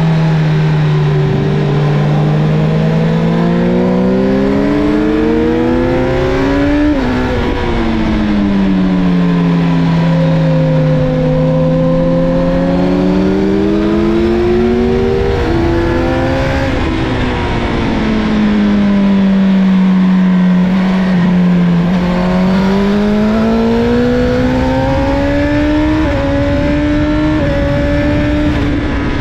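Honda CBR1000RR Fireblade's inline-four engine heard from on board, pitch climbing under acceleration, dropping sharply twice as the throttle closes and sinking before climbing again, with steady wind rush.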